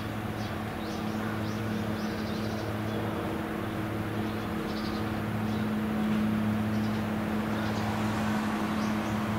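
Steady drone of a boat's diesel engine working a barge in to berth, a low hum with its overtones that grows a little louder about six seconds in. Small birds chirp faintly over it.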